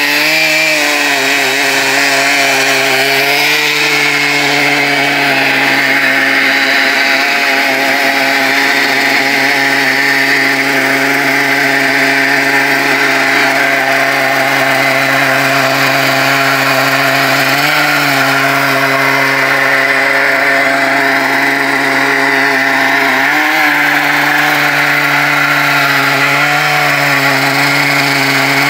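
Stihl chainsaw on a chainsaw mill ripping lengthwise through an ash log, held at steady full throttle under load. Its pitch sags briefly a few times during the cut.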